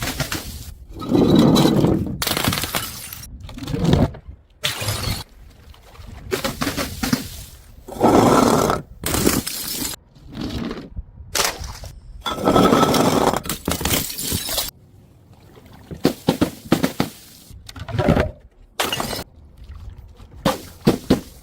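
Glass bottles breaking and shattering, one after another in a string of short separate clips, with the crunch and clatter of shards between the loudest smashes.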